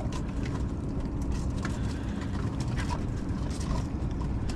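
Boat engine idling with a steady low rumble, over a few light clicks and scrapes of crab shells against a plastic crab gauge as the crabs are measured.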